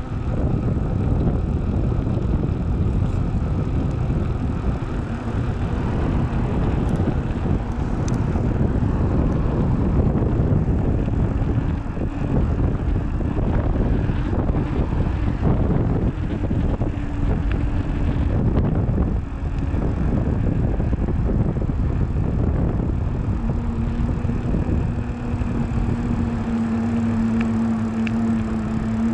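Heavy wind rumble on the microphone of a bike-mounted camera while riding, a steady deep noise throughout. A steady hum comes in near the end, likely the hum of a knobby Maxxis Minion DHR II 29x2.6 tyre rolling on a harder surface.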